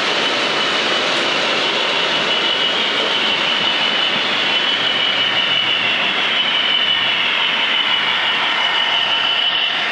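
OO gauge model diesel locomotive and wagons running along the track: a steady rolling noise of small wheels on rails with a high motor whine, which wavers in pitch as the locomotive passes close by near the end.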